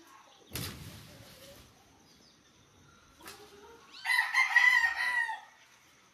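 A rooster crows once, a single long call of about a second and a half starting about four seconds in. Before it, about half a second in, there is a brief rustling crash.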